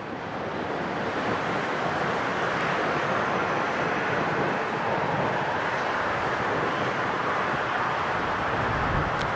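Jet airliner engines running at high power, a dense rushing roar that builds over the first second or two and then holds steady.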